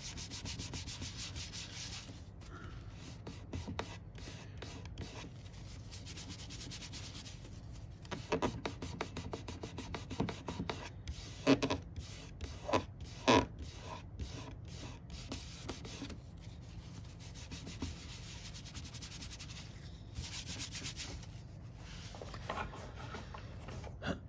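Paper towel and fingertip rubbing back and forth over an F5J glider's wing skin, a quick, scratchy run of strokes, with a few sharper knocks about halfway through.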